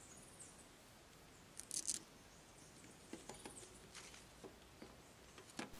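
Faint handling sounds of a bamboo rod, fishing line and a knife: a short scrape about two seconds in, then a few light clicks and taps.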